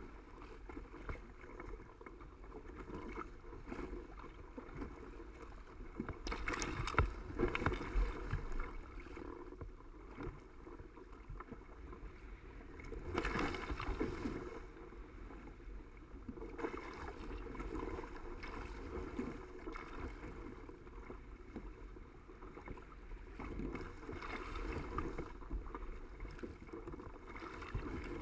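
Water rushing and splashing along the hull of a Hobie Cat catamaran sailing upwind through choppy seas. It comes in uneven surges, loudest about seven seconds in and again around thirteen seconds.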